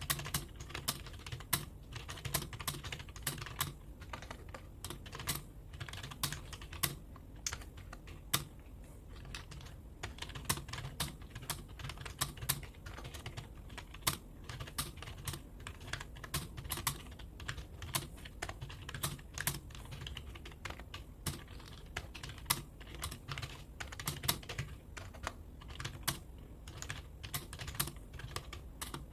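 Computer keyboard being typed on at a steady pace during a timed typing test, about 36 words per minute. Irregular key clicks come several times a second over a low steady hum.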